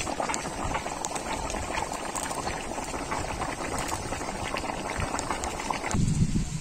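Tilapia fish curry bubbling at a simmer in a karahi, a steady crackle of small popping bubbles. About six seconds in it gives way abruptly to a louder low rumble.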